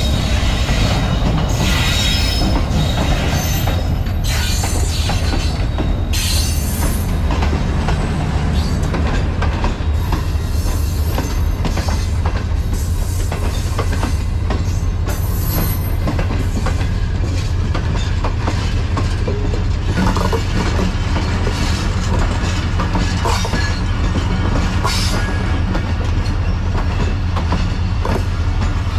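Passenger train pulling into the station: a diesel locomotive's steady low engine rumble under the coaches' wheels squealing and clattering over the rail joints. The squeals and clanks are thickest in the first few seconds.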